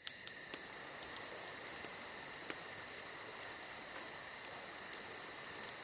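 Night insects calling steadily, a continuous trill with a fast, even high pulsing, with a few scattered sharp crackles from a campfire.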